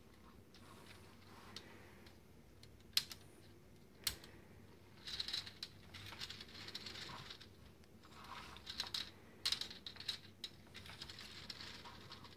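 Plastic gears and drivetrain of an unpowered Lego Technic Porsche 42056 chassis clicking and rattling as it is worked by hand. Two sharp clicks come about three and four seconds in, followed by two longer spells of fast, dense clicking.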